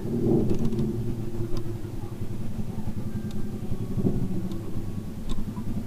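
A motor vehicle engine running close by: a steady, pulsing low rumble that starts suddenly and continues throughout, with a few faint light clicks over it.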